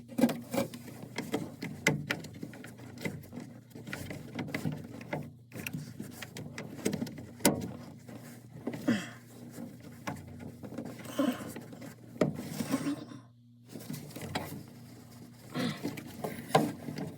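Irregular clicks, knocks and rattles of hands handling washing-machine parts, with a few brief squeaks, over a steady low hum.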